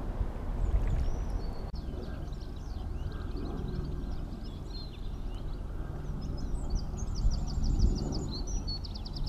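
Small birds singing and calling from the riverbank, with many short chirps and whistles and a fast trill of quickly repeated notes near the end, over a steady low rumble.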